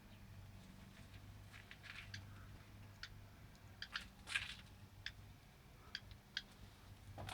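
A small songbird giving single short chirps rather than song, spaced irregularly about every half second to a second, the loudest about four seconds in. A low steady hum runs underneath.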